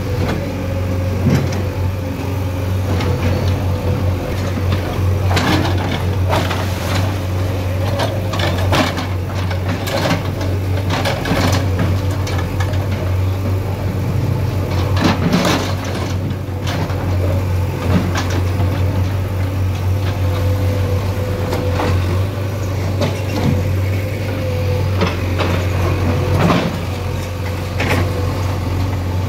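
Heavy diesel engine of an earthmoving machine such as a JCB running steadily, with scattered knocks and clanks from demolition work.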